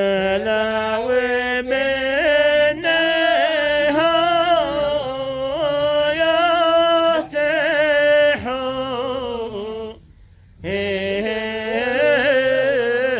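Solo singer performing a Yemeni ma'ina, a traditional folk work chant, in long ornamented phrases, with a brief break for breath about ten seconds in.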